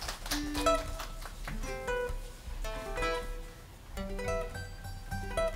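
Acoustic guitar playing a picked phrase of single notes and small chords, each note ringing out and decaying.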